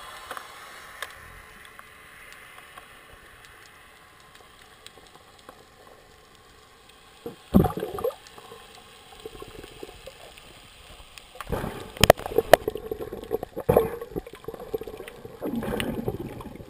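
Water-muffled audio from an underwater camera housing moving through the sea: a faint steady water hiss, one loud knock about seven and a half seconds in, then from about eleven seconds a run of knocks and swishes against the housing as it moves with the diver.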